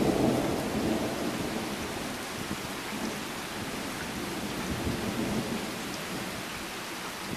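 Steady rain hissing down, with a low roll of thunder that is loudest at the start and slowly fades over the next few seconds.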